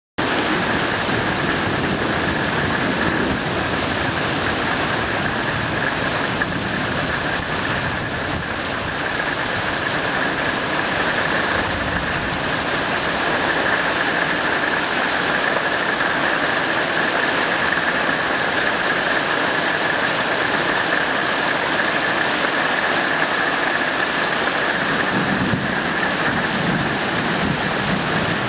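Heavy rain pouring steadily in a thunderstorm, with low rumbles of thunder about twelve seconds in and again near the end.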